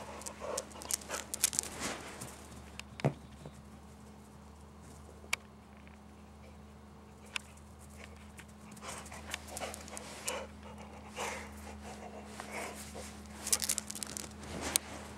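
A dog panting close by, with scuffs and clicks of its feet and the toy, in the first few seconds and again over the last several seconds; quieter in between.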